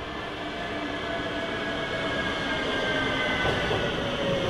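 Train running on rails, growing louder, with a faint high squeal from the wheels that slowly slides down in pitch.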